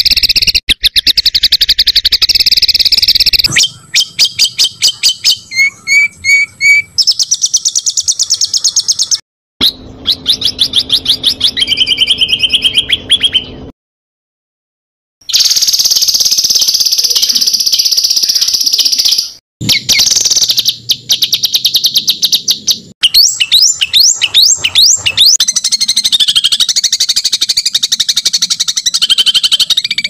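Recorded songbird song spliced together as masteran tutor audio for cage birds: fast high trills and rapid strings of repeated chirps. It switches abruptly from one recording to the next, with a brief silent gap about nine seconds in, a longer one near the middle and another brief one a few seconds later.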